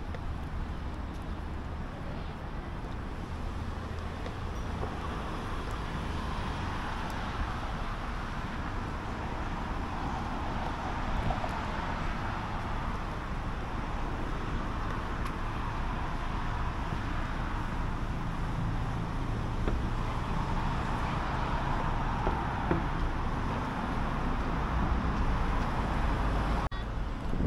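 City road traffic: a steady hiss and rumble of cars passing on the street, swelling a few times as vehicles go by.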